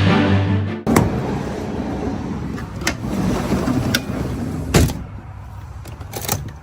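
Intro music cutting off suddenly about a second in, then a steady rushing background with a handful of sharp knocks and clicks, the loudest a little before the five-second mark and a quick cluster near the end.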